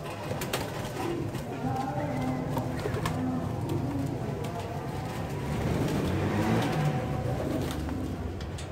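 Several domestic pigeons cooing, with short low coos repeating one after another, and a few sharp clicks among them.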